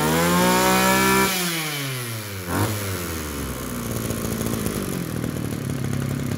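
ECHO (Kioritz) 2501 brush cutter's small two-stroke engine revving high, then the throttle is let off about a second in and the pitch falls to a steady idle. A single sharp click comes as it settles.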